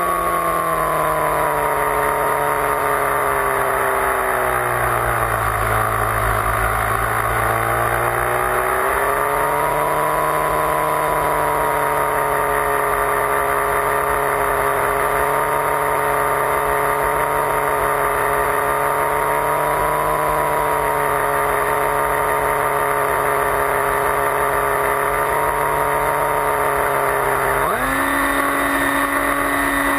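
Motor and propeller of an FPV flying wing, heard from its onboard camera over rushing wind. The pitch sinks over the first few seconds as the throttle eases, climbs back and holds steady, then jumps sharply higher near the end as the throttle is opened.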